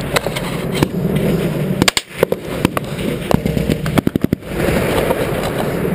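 Gunfire during a firefight: scattered single shots, then a short rapid burst of about six rounds about four seconds in.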